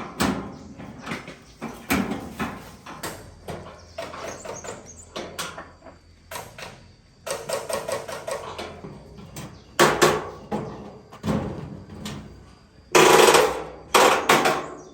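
Irregular knocks and clatter of metal parts and tools being handled during mechanical repair work, with a brief ringing stretch midway and the loudest clattering burst near the end.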